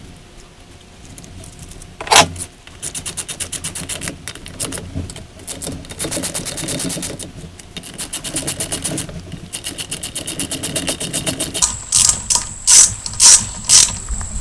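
Socket ratchet clicking in quick runs, about eight clicks a second, as the camshaft bearing cap bolts are run down snug before torquing; a few louder single clicks near the end.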